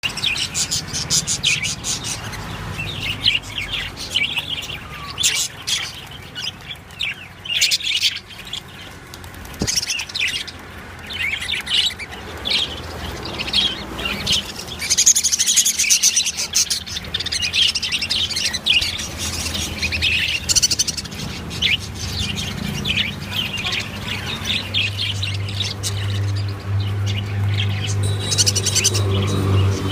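Several pet budgerigars chirping and chattering, with many short high chirps overlapping throughout. A low steady hum comes in near the end.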